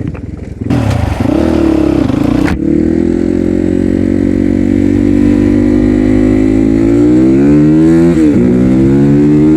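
Crossfire RM250 dirt bike's single-cylinder engine running under way at a steady pitch, then revving higher about seven seconds in, dropping sharply near eight seconds and climbing again. A loud rush of wind on the microphone comes in about a second in and stops after a second and a half.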